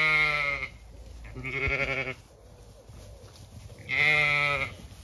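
Zwartbles sheep bleating: three loud, wavering bleats, each under a second long and about two seconds apart.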